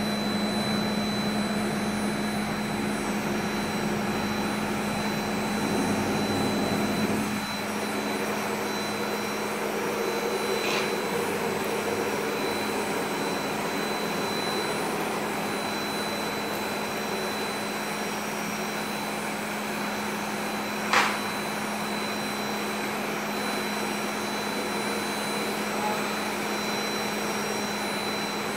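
High-speed router spindle on a CNC robot arm carving a polystyrene foam block, running with a steady high whine over a hiss. A low hum drops out about a quarter of the way in, and there is a single sharp click about two-thirds of the way through.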